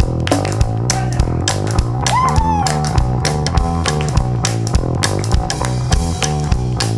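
Live rock-and-roll boogie band playing: electric guitar over a walking bass line and drum kit, with hand claps keeping a steady beat.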